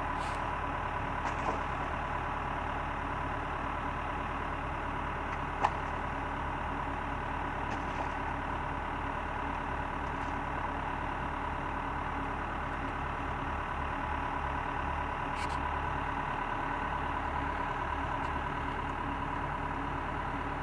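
Backhoe engine running steadily at idle, with a single sharp click about six seconds in.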